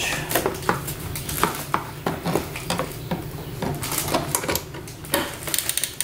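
A 5/16-inch ratchet wrench clicking and clinking in short, uneven strokes as it tightens the nut that holds a turn signal housing in place.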